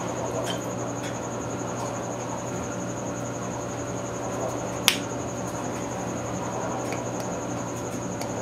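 Steady background hum with a high, evenly pulsing tone, a few faint ticks, and one sharp click about five seconds in.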